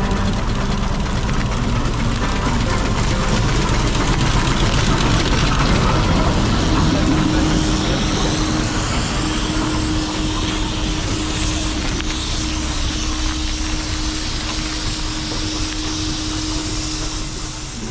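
Steam traction engines running and moving off across a concrete yard: a steady mix of steam and rolling noise, with a steady hum joining about six seconds in.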